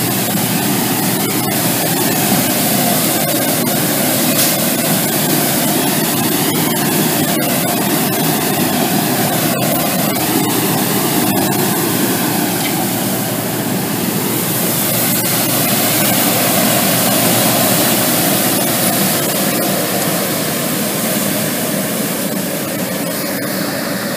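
Engine of a CNG-fuelled Mack garbage truck with a McNeilus rear-loader body, running steadily close by and growing a little quieter near the end.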